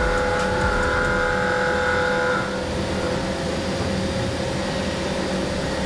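Heller CP 6000 five-axis machining center finish-milling the snail surface of a pump housing with a ball end mill: a steady high cutting whine over the machine's running hum. The whine fades about two and a half seconds in.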